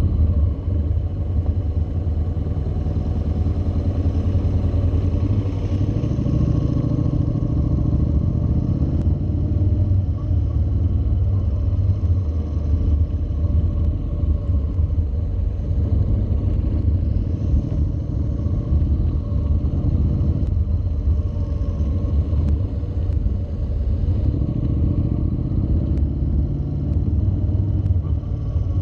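Honda NC700's parallel-twin engine running at low road speed through tight, leaned-over turns. Its note rises and falls a little with the throttle, over a steady low rumble.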